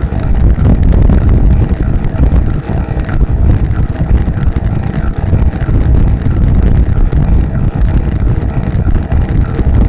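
Wind buffeting the microphone of a camera mounted on a recumbent bicycle riding at race speed. It makes a loud, steady low rumble that flutters constantly.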